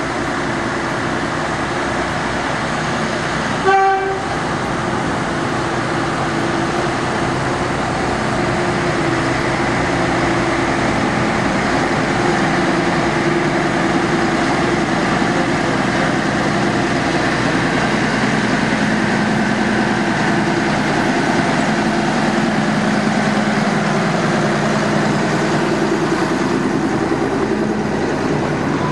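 Small diesel shunting locomotive running as it approaches and passes, getting louder as it nears. It gives one short toot on its horn about four seconds in, and near the end the coaches roll past.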